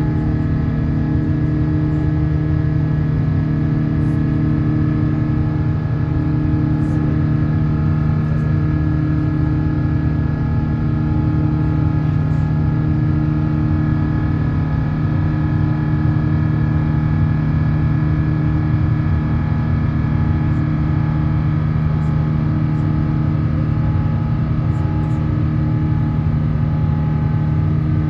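Airliner jet engines heard from inside the cabin, a loud steady drone with several steady tones over a low rumble, holding at constant power.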